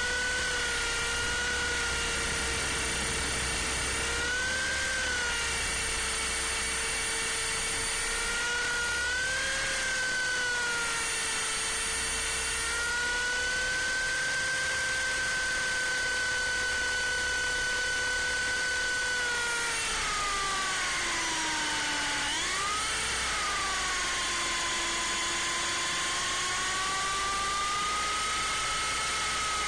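MJX F45 RC helicopter's electric motors and rotor whining steadily, heard close up from a camera mounted on its belly. The pitch rises briefly twice in the first ten seconds, drops about twenty seconds in, and climbs back a couple of seconds later.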